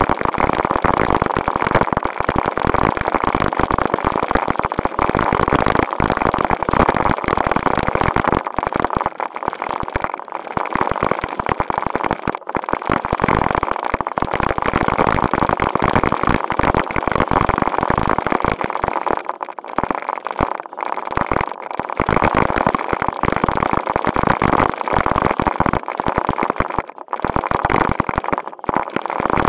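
Onboard sound of a JJRC Q76 RC stunt car driving over rough pavement: its electric drive whines steadily under constant rattling and crackling. The noise drops out briefly a few times in the second half.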